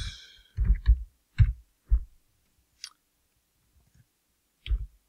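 Computer keyboard keystrokes and mouse clicks: a handful of separate short taps with pauses between, while editing code.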